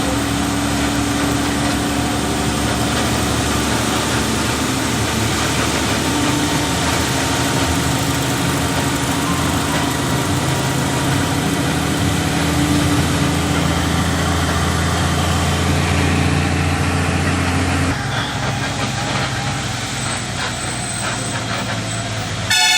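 Road vehicle's engine running steadily with road noise while driving. The low engine hum drops off about eighteen seconds in.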